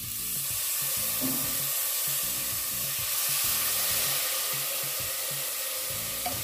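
Sliced onions frying in hot fat in an aluminium pressure cooker sizzle strongly as a splash of water hits the pan, the sizzle surging at the start and staying as a steady hiss. The water is deglazing the browned drippings stuck to the bottom of the pot.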